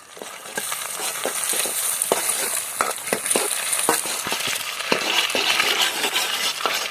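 Food sizzling loudly in hot oil in a pan, starting about half a second in, with repeated clicks and scrapes of a spatula stirring against the pan.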